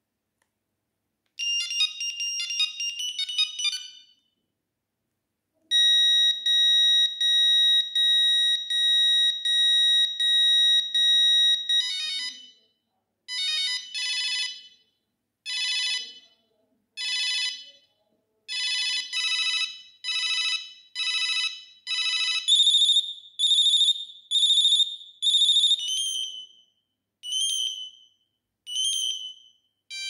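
Siemens M35i mobile phone playing its built-in monophonic ringtones through its small speaker, one after another. First comes a short quick tune, then a steady beep repeating about twice a second for some six seconds, then a melody of separate beeps.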